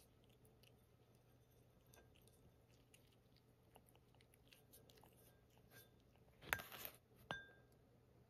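Cat eating from a ceramic bowl: faint, scattered clicks of chewing and licking, with a brief louder scraping rustle about six and a half seconds in.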